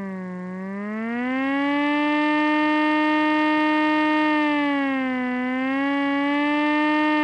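Air-raid siren wailing: its pitch sags and climbs back just after the start, holds steady, then dips briefly about five seconds in.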